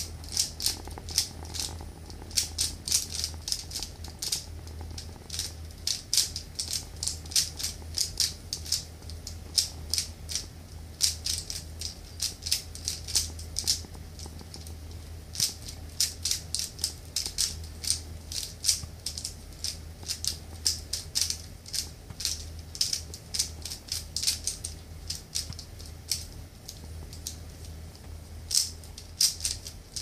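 Rubik's cube being turned quickly by hand: a fast, irregular run of plastic clicks and clacks as the layers are twisted, several a second, with a couple of brief pauses.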